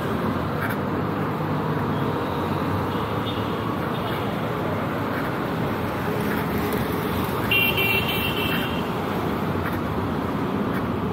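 Steady road traffic noise, with a vehicle horn tooting briefly about three-quarters of the way in, the loudest sound, and fainter horn toots about a third of the way in.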